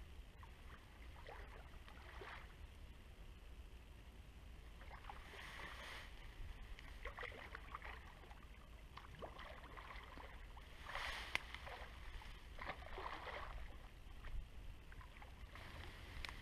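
Faint, scattered water splashes and rustles from a hooked wels catfish being played close to the bank, with a few louder bursts around the middle and later on, over a low steady rumble.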